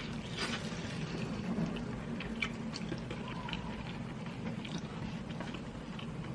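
A person eating a braised chicken leg: scattered faint chewing and mouth clicks, over a steady low hum.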